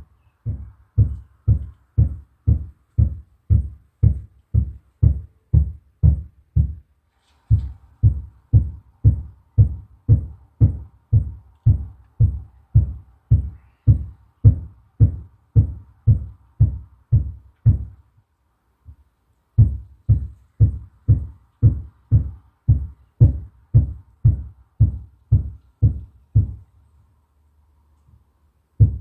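Steady hammering heard through the ceiling from the apartment above: heavy, dull thuds at about two a second, stopping briefly about seven and eighteen seconds in and for a couple of seconds near the end.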